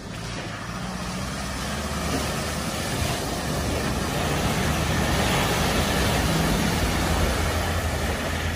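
Land Rover Defender driving through deep floodwater: its engine runs steadily under the loud rush and spray of water thrown up by its bow wave. The sound grows louder over the first few seconds as the vehicle comes closer, then cuts off suddenly at the end.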